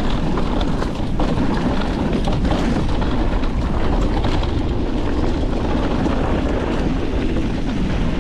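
Mountain bike descending a dirt trail: steady wind noise on the microphone and tyres rolling over dirt and rock, with scattered small clicks and rattles from the bike.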